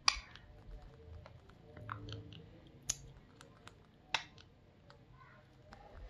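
Rose-ringed parakeet nibbling and crunching a piece of toasted bread with its beak: a run of irregular small clicks and crackles, with a few louder snaps.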